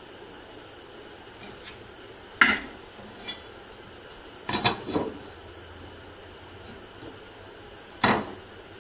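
Sharp knocks and clatters of wooden frame pieces being handled and set down on a wooden workbench: one about two and a half seconds in, a quick run of three around the middle, and one more near the end, over a faint steady hiss.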